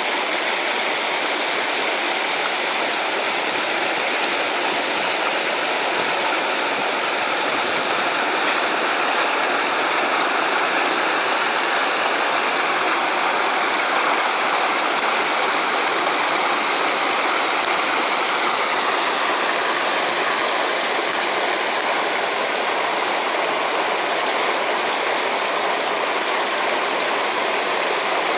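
Shallow rocky stream rushing over stones and small rapids, a steady, unbroken sound of running water.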